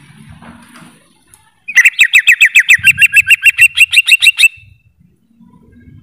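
Green leafbird (cucak ijo) singing: a fast, loud run of about twenty short, sharp notes, roughly seven a second, starting about two seconds in and lasting under three seconds.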